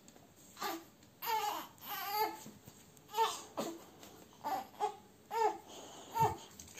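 A baby fussing and babbling in the pram: a string of short, pitched cries and babbles, one about every half second, with a low thump about six seconds in.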